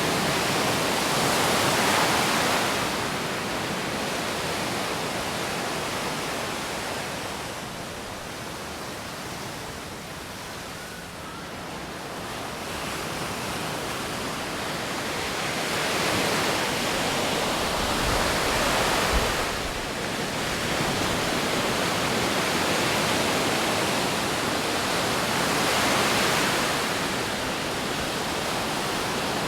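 Rushing noise of wind and breaking surf on a beach, swelling and fading every several seconds, with brief low rumbles of wind on the microphone a little past the middle.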